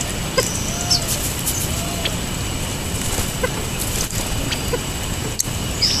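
California quail giving two short, soft clucking calls while feeding, with small songbirds chipping and chirping, over steady background noise.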